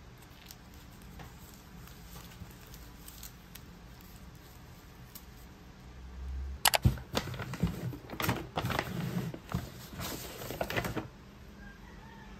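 Paper packaging being handled. At first there is only faint paper handling. About six and a half seconds in comes loud crinkling and rustling with sharp crackles, as a paper shopping bag and its wrapping are opened. It stops about a second before the end.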